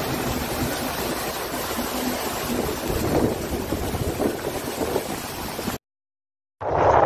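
Steady rushing noise of floodwater, rain and wind on a phone microphone. It cuts out suddenly near the end, and heavy wind buffeting the microphone follows.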